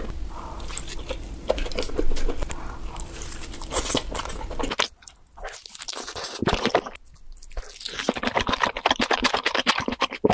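Close-miked eating sounds of cheesy pizza: bites into the crust with crunching, then wet, sticky chewing of stringy melted cheese. About five seconds in the low background hum drops out and a second eater's clip begins, with a quicker run of crisp chewing clicks.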